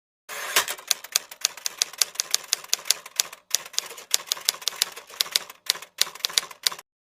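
Typewriter keys clacking in a quick, even run of about four or five strikes a second, with two brief pauses. It sits between stretches of total silence, as an added typing sound effect.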